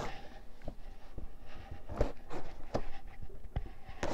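Cardboard shipping box being worked open by hand: irregular scrapes, creaks and knocks of cardboard as its taped, well-secured top edge is pulled at.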